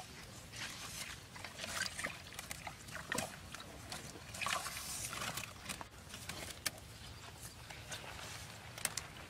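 Bamboo sticks of a pit snake trap rustling and clattering as hands push in among them and pull a snake out, in irregular bursts with a few sharp clicks near the end.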